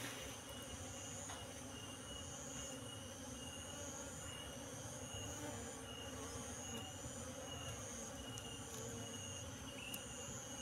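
Asian honey bees (Apis cerana) buzzing steadily around an open hive box and loose honeycomb, with a high, pulsing insect chirp behind them.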